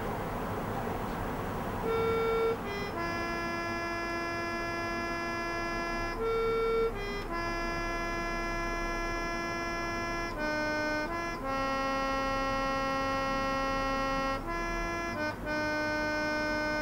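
Slow keyboard music of long, perfectly steady held notes rich in overtones, starting about two seconds in after a low hiss. The notes change pitch every few seconds, over a steady low hum.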